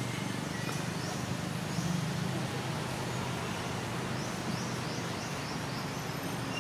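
Steady outdoor background: a constant low rumble and hiss with no clear single source. Short, high, falling chirps repeat a few times near the start and in a quick run of about five, some four to five seconds in.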